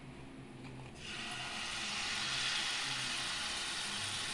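A ladleful of palm-fruit malpua batter going into hot oil: the oil starts sizzling about a second in and keeps frying with a steady hiss.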